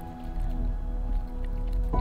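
Background music of soft, sustained notes, with a new note coming in near the end.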